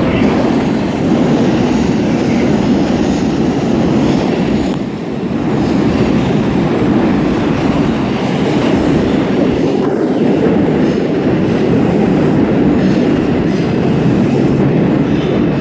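New York City subway train running loud and steady through the station, with wheel and track noise and a brief dip about five seconds in.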